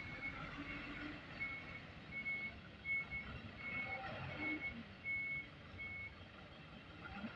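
Reversing alarm of a refrigerated box truck, one high steady tone beeping about every 0.7 seconds over the truck's engine running. The beeping stops about six seconds in.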